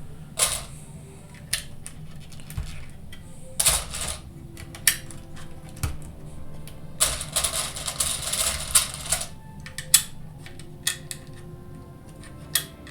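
Plastic Lego bricks and plates clicking as they are handled and pressed together, in irregular sharp clicks, with a longer rattle of loose pieces being sorted a little past the middle.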